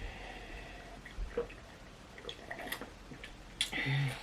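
Quiet mouth sounds of eating and drinking at close range: faint wet clicks and smacks, with one brief louder mouth sound near the end.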